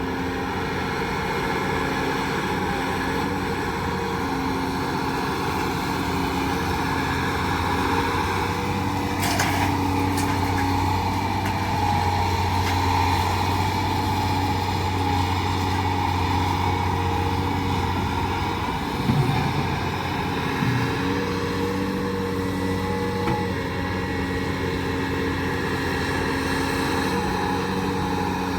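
Heavy diesel engine running steadily under load, its pitch holding level with small shifts, with a sharp click about nine seconds in and a pair of short knocks around two-thirds of the way through.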